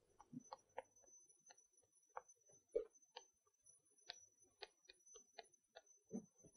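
Chalk on a chalkboard during writing: a string of faint, irregular ticks and taps as the strokes of an equation go down.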